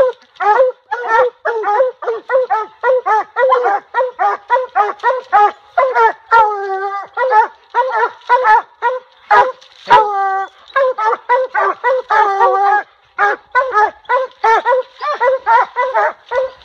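Several coonhounds barking treed at a raccoon: a fast, steady run of short barks, about three or four a second, broken by a long drawn-out howl about six and a half seconds in and another about ten seconds in.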